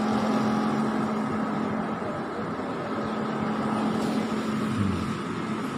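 Steady engine and road noise of a car heard from inside the cabin, with a constant low hum.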